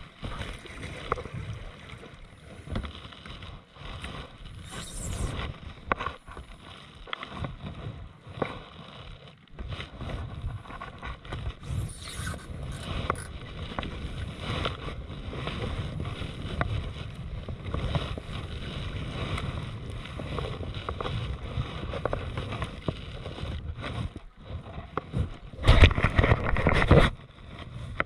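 Kayak paddle strokes in calm water: the blade dipping and pulling, with small splashes, drips and water lapping at the hull. A louder rush of splashing or wind comes near the end.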